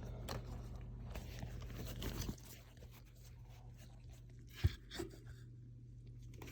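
Scattered handling noises, light scrapes and small clicks, with one sharp knock about four and a half seconds in and a smaller one just after, over a steady low hum.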